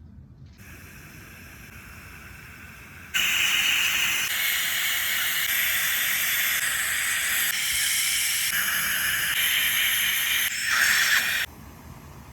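Dental equipment hissing: a faint hiss, then about three seconds in a loud steady airy hiss that changes slightly every second or so and cuts off suddenly near the end.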